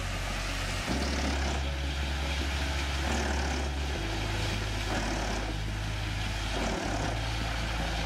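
Truck-mounted drum wood chipper running under its diesel engine as logs are fed into its spiked rollers: a steady, deep engine drone with a noisy hiss of the chipping on top, shifting in pitch and level a few times.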